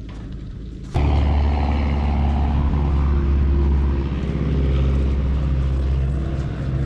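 Small aircraft engine running steadily, heard as a low hum that jumps sharply louder about a second in and holds.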